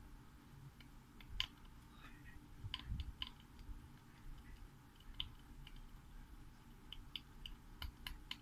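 Faint, irregular small clicks and ticks from a fine metal pick working at the thin voice-coil wire of a tweeter diaphragm.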